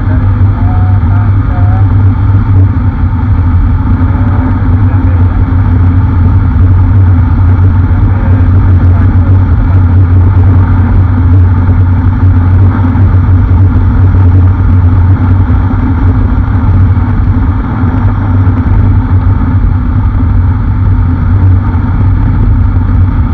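Motorcycle cruising steadily at highway speed: heavy wind rush over the microphone mixed with the steady drone of the engine and tyres.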